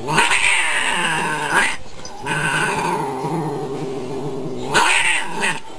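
Cats growling and yowling in a fight: long, wavering drawn-out cries with louder swells about a second in and again near the end.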